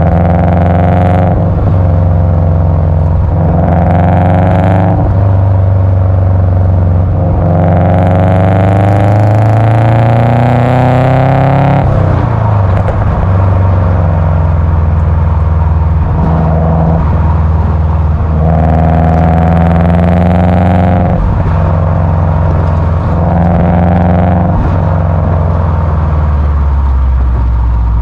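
Subaru Impreza WRX's tuned EJ205 turbocharged flat-four, about 400 hp, revving through its exhaust. Several short rises in pitch are followed by a longer climb of about five seconds that drops off suddenly, with crackles as the revs fall. More short revs follow before it settles to a lower steady note near the end.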